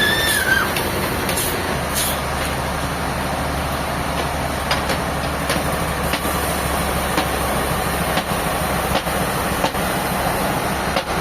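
Sawmill machinery running steadily: a constant engine-like drone with scattered light clicks and knocks. A short squeak sounds right at the start.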